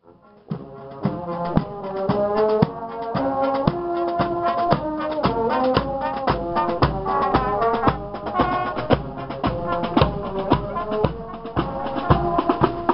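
Marching brass band playing a march: sousaphone, tuba and trombones carry the tune over a bass drum and snare drums beating about two strokes a second.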